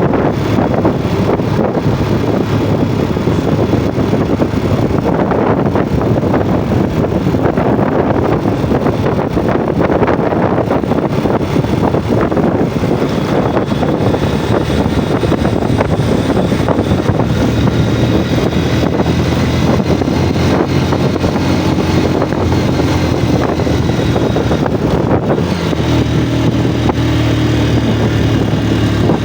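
Yamaha Jupiter MX motorcycle's single-cylinder four-stroke engine running as the bike is ridden, mixed with rough wind and road noise. From a little past halfway the engine note comes through steadier.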